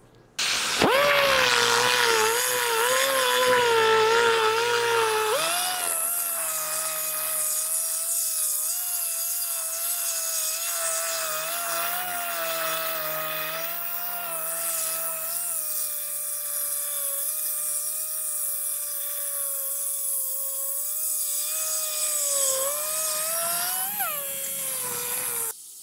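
Die grinder with a burr cutting into the exhaust port of a cast-iron Pontiac 6X cylinder head, opening the port out to a scribed template. It makes a high whine that wavers in pitch as the burr bites, with a hiss over it. It starts about a second in, jumps higher in pitch about five seconds in, and stops near the end.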